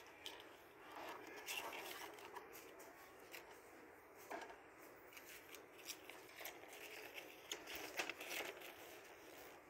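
Faint handling noise: a cardboard box and clear plastic wrapping rustling and crinkling as the contents are taken out, with a louder cluster of paper rustles near the end as a folded leaflet is opened.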